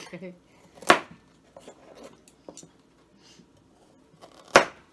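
Kitchen knives chopping on cutting boards as carrots and beef are cut. There are two sharp knocks of the blade against the board, one about a second in and a louder one near the end, with faint small cutting clicks in between.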